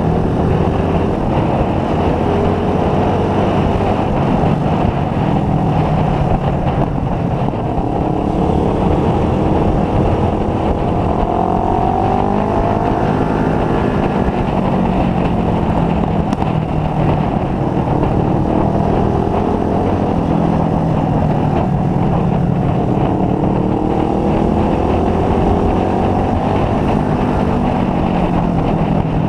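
Motorcycle engine running at road speed, its pitch rising and falling several times as the rider speeds up and eases off, over a steady rush of wind and road noise.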